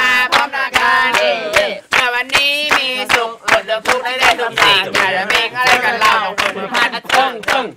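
Several people's voices shouting and singing together, with sharp claps or beats throughout.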